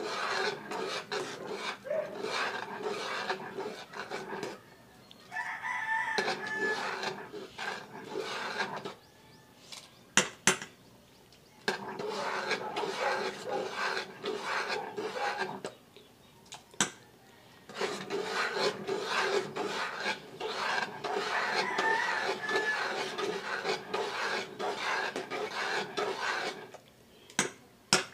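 A ladle stirring and scraping thick champorado against the bottom of a metal pot, in spells of several seconds with short pauses. A few sharp knocks of the ladle on the pot come around ten seconds in and near the end.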